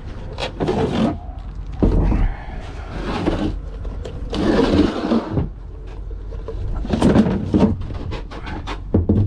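Irregular knocks, clunks and scrapes of boat batteries and their cable leads being handled in a battery locker, with a run of quick clicks and rattles near the end.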